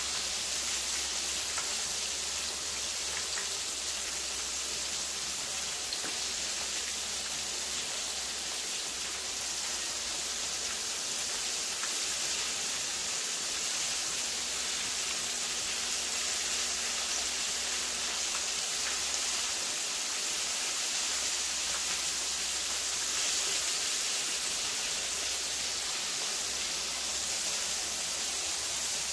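Floured chicken pieces frying in hot oil: a steady crackling sizzle.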